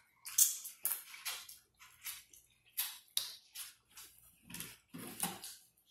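Close-miked mouth sounds of people eating seafood boil: wet chewing and lip smacking, irregular clicks and smacks with short pauses between.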